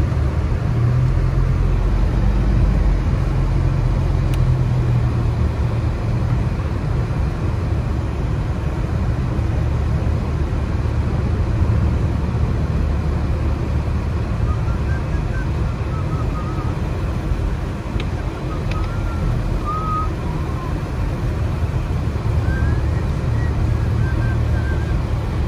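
Steady low rumble of a vehicle heard from inside its cabin: engine and snow tires running on a snow-covered road.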